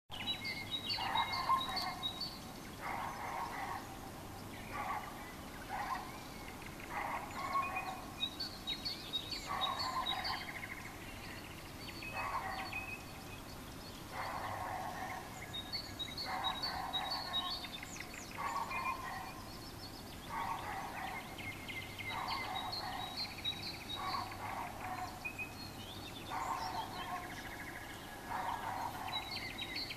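Nightingale singing outside: phrases of quick, high repeated notes alternating with louder, lower rattling phrases, one after another every second or two.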